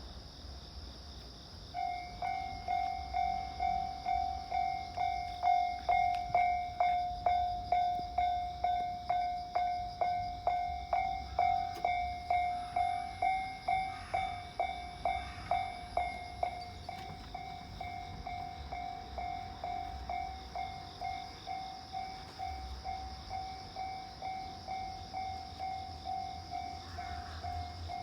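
Japanese railway level-crossing warning bell starting up about two seconds in, a single electronic ding repeated a little over twice a second, sounding the warning that a train is approaching the crossing. It grows fainter in the second half.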